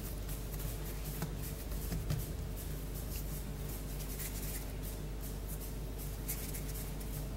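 Faint soft rubbing of hands rolling a ball of crumbly shortbread dough between the palms, over a steady low electrical hum, with a couple of light ticks.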